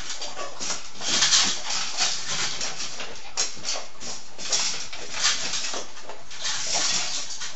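An English cocker spaniel and a border collie eating from their food bowls: a steady run of irregular crunching and licking sounds, several a second.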